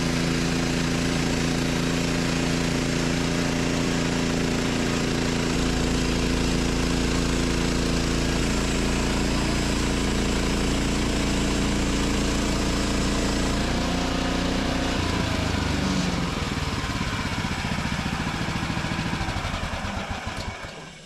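Gas engine of a Woodland Mills HM 130 MAX bandsaw mill running while its blade cuts a 2-inch slab from a Douglas fir log. It runs steadily, with the engine note shifting in steps, then drops away in the last few seconds as the cut nears the end of the log.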